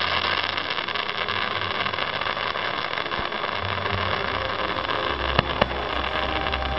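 Two sharp firework bangs in quick succession about five and a half seconds in, over a steady rushing hiss with faint held tones and a low hum.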